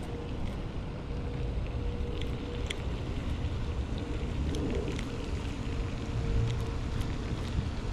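Wind buffeting the microphone as a steady low rumble, with scattered faint clicks.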